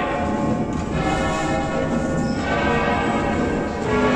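Full-circle ringing of a hand-rung tower set of large bronze church bells tuned in A, pulled from ropes in the Veronese style. Several bells are ringing at once as overlapping, sustained tones, with fresh strikes about a second in and again near the end.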